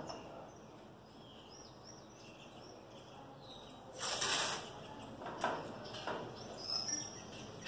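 Adhesive tape being pulled off its roll and pressed along a metal pickup tailgate: a short ripping noise about four seconds in, then a few brief tearing and rubbing sounds. Birds chirp faintly in the first half.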